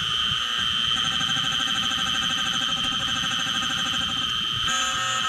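Small CNC mill running, its spindle whining steadily while an end mill cuts a white Delrin block on an adaptive outer-contour pass. About four and a half seconds in, the sound changes to a repeating pulse as the toolpath changes.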